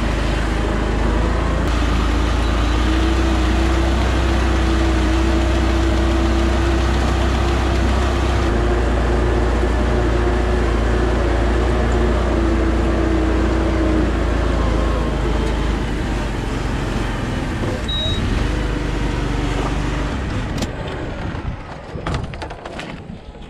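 Iseki PZ73 seven-row riding rice transplanter running steadily while planting, its engine hum joined by a steady higher whine for much of the time. The sound drops and turns uneven near the end.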